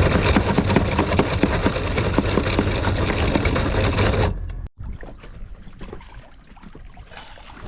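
Anchor chain rattling out fast as the boat's anchor is dropped: a dense, rapid clatter over a steady low hum, stopping abruptly about four seconds in. After that, softer water and wind noise.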